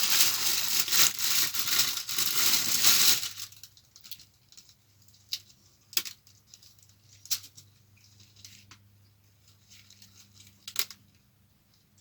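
Kitchen handling noise while making sandwiches: a crinkling rustle for about three seconds, then quiet broken by a handful of light, sharp clicks and knocks, as of utensils and crockery set down.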